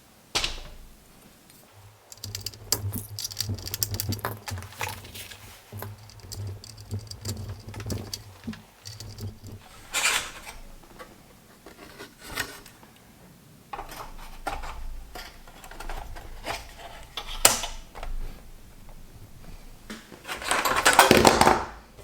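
Hands working on a PS3 Slim console and its parts with small tools: irregular clicks, taps and metallic rattles, a low steady hum from about two to nine seconds in, and a longer rough scrubbing noise near the end.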